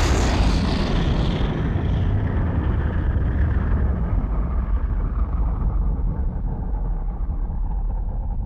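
A deep, loud rumbling sound effect. Its hissing top fades away slowly while the low rumble carries on.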